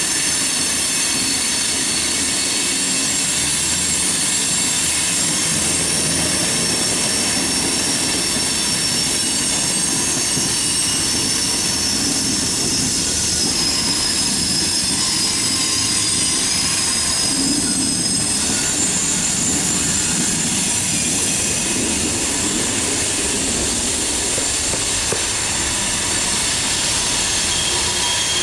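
Freight train cars rolling past, a steady rumble of wheels on rail with high-pitched wheel squeal, several thin tones that slowly slide in pitch.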